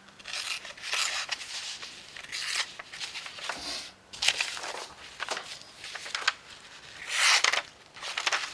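Ozark Trail Fathom folding knife blade being drawn through paper in about seven or eight short rasping, tearing strokes, the loudest near the end. The blade tears more than it slices: the factory edge is cutting, not great, and needs sharpening.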